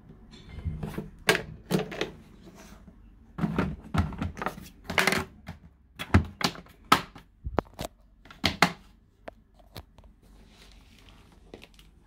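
Hard plastic knocks and clunks as the body of a Numatic NV200 vacuum cleaner is tipped over and handled: a dozen or so sharp, irregular taps over about nine seconds, with handling rustle between them.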